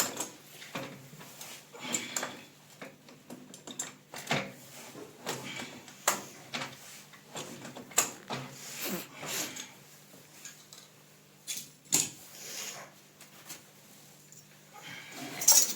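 Irregular clicks and knocks of hand work, as of pipe and fittings being handled, over a faint steady hum.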